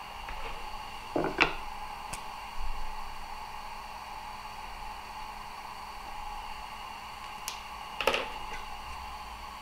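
Two light knocks of small objects set down on a wooden workbench, one about a second in and one near the end, over a steady hum of several level tones.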